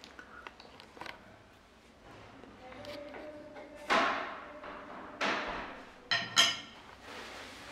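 Sudden bangs and scrapes of work going on elsewhere in the building: a loud bang about four seconds in, another a second later, and two sharp knocks with a ringing edge near the end. Under them, light clicks of a small knife slicing butter on a wooden cutting board.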